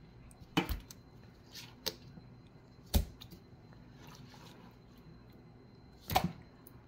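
Wet, freshly caught fish being handled in a stainless steel sink: four short slaps and knocks of fish against fish and the steel, the sharpest about three seconds in.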